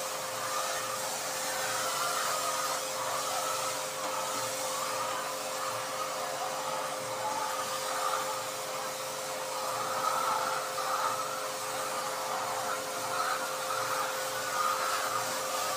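Motor-driven pressure pump running steadily with a constant hum, spraying a disinfectant wash.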